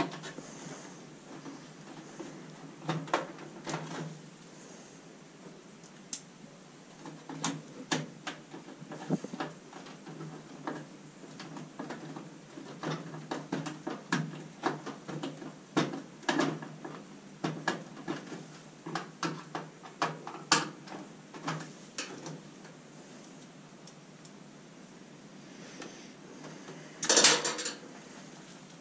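Hands working on an appliance: irregular clicks, taps and light clatters of tools and small parts, with a louder clatter a little before the end.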